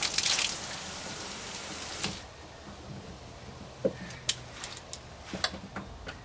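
Water spraying hard from a Relaqua AS-500W pressure-boosting outside shower head, hissing and splattering. It stops about two seconds in, followed by a few scattered drips and clicks.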